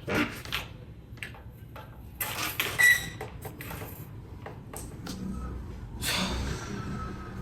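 A metal plate rack being handled and set aside: scattered knocks and rattles. The loudest is a short metallic ping about three seconds in, and a brief scrape follows about six seconds in.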